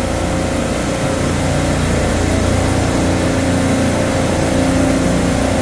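Supermarket refrigeration compressor rack running: a loud, steady machine-room drone with a constant low hum.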